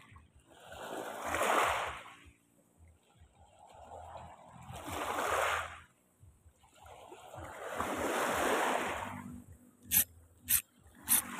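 Small sea waves washing against the shore, three slow swells of wash that each rise and fall over about two seconds. Near the end, three sharp clicks as a spinning fishing reel is handled right by the microphone.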